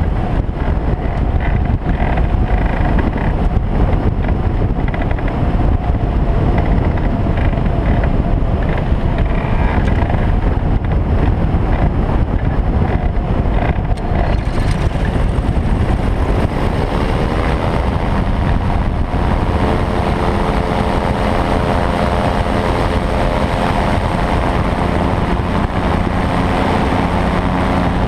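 Airflow rushing past the open cockpit of a microlight trike with its engine off. About halfway through, the trike's Briggs & Stratton Vanguard engine comes in, rising in pitch over a few seconds before settling into a steady run.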